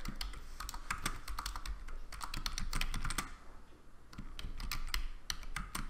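Typing on a computer keyboard: a quick, irregular run of key clicks, with a short pause a little past halfway before the typing resumes.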